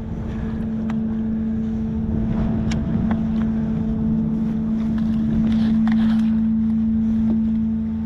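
A steady low hum from a small motor, under wind noise on the microphone, with a few scattered light clicks and knocks.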